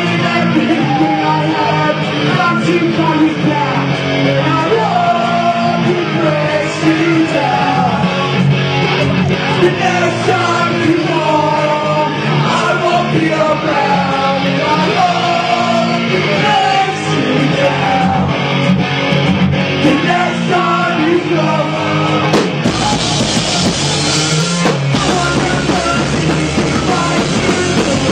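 Pop-punk band playing live: a lead vocal sings over electric guitars, bass and drums. About 23 seconds in, the band comes in harder, with a wash of cymbals and heavier bass.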